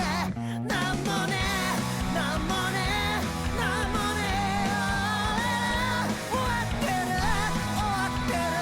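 Anime opening theme song: J-rock with a sung vocal line over a steady band backing.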